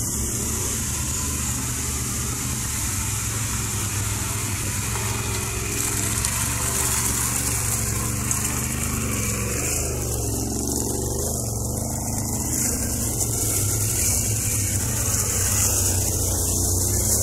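ATV engine running steadily under way, with a constant high hiss over it.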